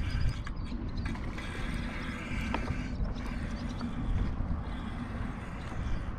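Fishing reel being cranked steadily while reeling in a hooked fish, a continuous mechanical whirring. Wind rumbles on the microphone underneath.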